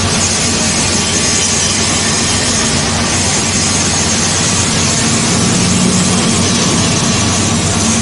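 Plastic film and woven-bag recycling line machinery running: a loud, steady mechanical noise with a low hum and a high whine.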